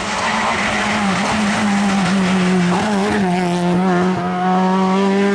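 Rear-wheel-drive rally car engine held at a steady high pitch that dips briefly about two and three seconds in, with tyre noise as the car slides.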